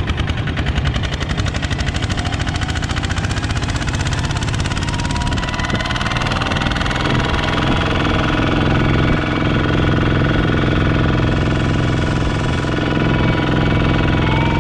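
Two-wheel walking tractor's single-cylinder diesel engine running steadily under way, with a fast, even beat.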